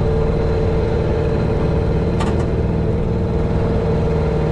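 Outboard motor of a small aluminium boat running steadily at low speed, a constant hum with a strong mid-pitched drone. A single short click about halfway through.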